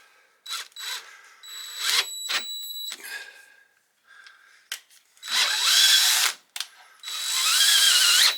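Cordless drill driver turning a tap into steel in several short bursts, its motor pitch wavering as it bogs under the load: the driver is not strong enough to cut the thread.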